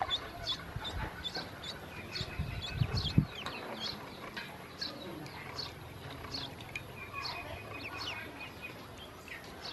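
A group of ducklings peeping: short, high, downward-sliding calls, two or three a second, overlapping. A few low thumps about three seconds in.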